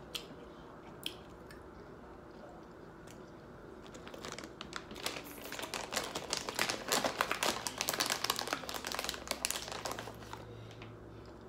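Crisp crackling and crunching of a taco being bitten and chewed close to the microphone. After a couple of isolated clicks, it becomes dense from about four seconds in and dies away near the end.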